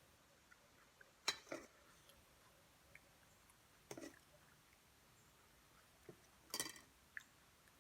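A few short clinks and taps of tableware during a meal, in small clusters about a second in, around four seconds and near the end, against near silence.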